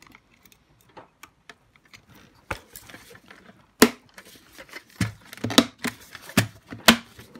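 Hard plastic parts of a Dyson DC41 cyclone assembly clicking and knocking as they are handled and fitted back together while a spring is worked back into place. Scattered light ticks at first, then several sharp clicks in the second half.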